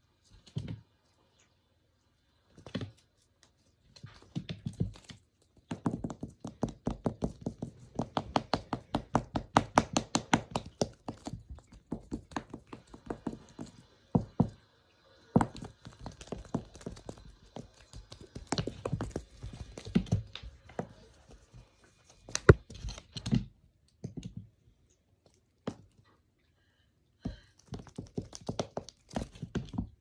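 Knocks, thunks and runs of fast clicking from an electric flying-bird cat toy as a kitten bats and grabs the bird on a wooden floor. The clicking is densest for several seconds early on, about six or seven a second, with scattered single knocks later and short silent gaps between.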